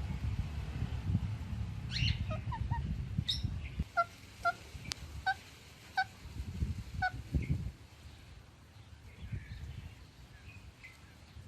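A parrot calling: a run of short, evenly spaced chirps in the middle, with a few rising squeaks before them and low thumps in the first half.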